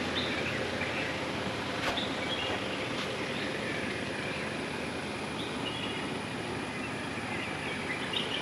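Steady rushing noise of a moving vehicle on the road, with a few faint bird chirps.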